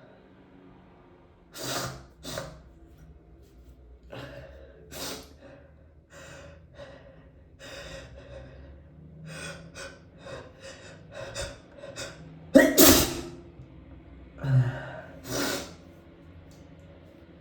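A person's sneeze about twelve and a half seconds in, the loudest sound here. It is led up to by a run of short breaths that come quicker and quicker, and followed by two more breaths.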